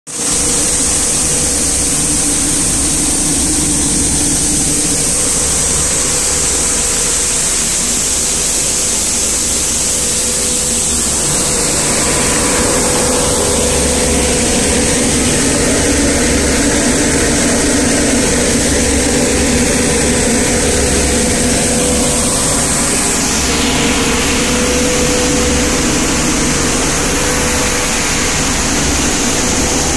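Black pepper cleaning machine running steadily: a constant mechanical hum and rush with a high steady whine, which dips slightly in pitch about three-quarters of the way through.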